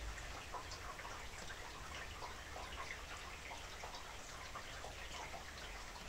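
Steady rain, many close drops dripping and ticking, with water trickling down a gutter.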